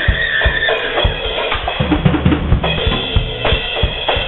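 Music carried by a drum kit, with regular kick and snare beats over a dense backing, sounding dull with no top end.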